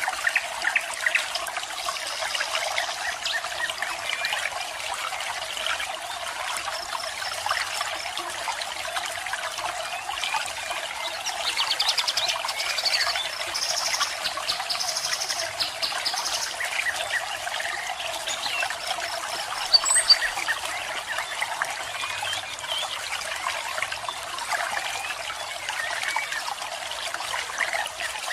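Running water trickling and splashing steadily, with small birds calling over it in short high chirps and quick trilled runs of notes, several times.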